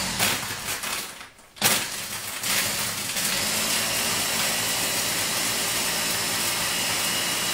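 Ninja blender motor running, blending a shake with banana and water. It cuts out for a moment about a second in, then starts again and runs steadily.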